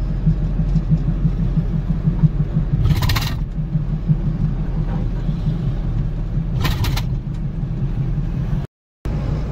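Mini truck engine droning steadily with road noise, heard from inside the cab while driving on the highway. Two short hissing sounds come about four seconds apart, and the sound cuts out for a moment near the end.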